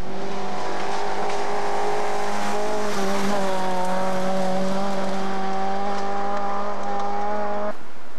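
Rally car engine held at high revs at a nearly steady pitch as the car slides through a gravel corner, with gravel hissing under the tyres for the first few seconds. The sound cuts off abruptly near the end.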